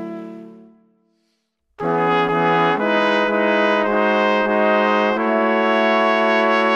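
Instrumental background music with brass-like held chords: a chord fades out within the first second, a brief silence follows, then a new phrase of sustained chords starts and moves from chord to chord every half second or so.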